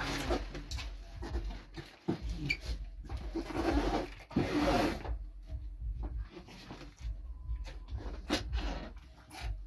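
Items being shuffled and pressed into a large cardboard shipping box: rubbing, rustling and scattered knocks, with a longer stretch of scraping from about three and a half to five seconds in.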